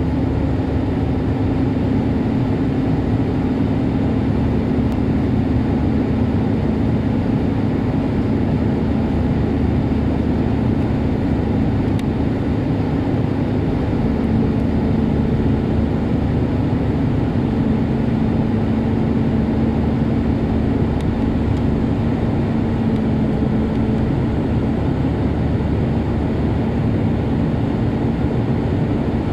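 Jet airliner cabin noise in cruise: the steady rush of the engines and airflow heard inside the cabin, with a steady low hum underneath.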